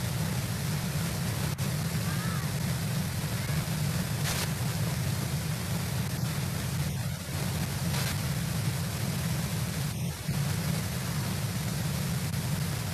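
Steady outdoor rushing noise picked up by the nest camera's microphone, with a constant low rumble under a hiss.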